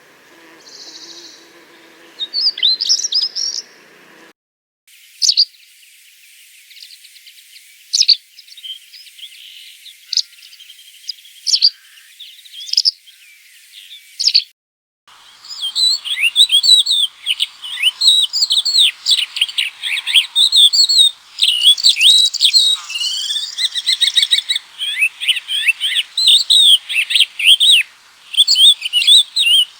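Recorded songbird songs played one after another: a short bout of song, then after a brief pause a sparse series of thin high notes, then from about 15 s in a busy, fast run of chirps and trills.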